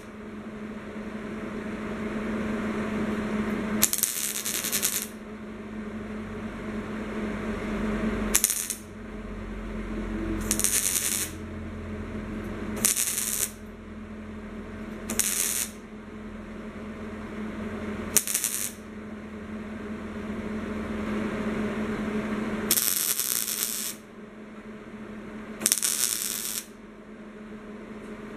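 Wire-feed (MIG) welder laying a series of short tack welds on a thin sheet-steel hood patch. There are about eight bursts of arc crackle, each a third of a second to a second long, with a steady hum between them.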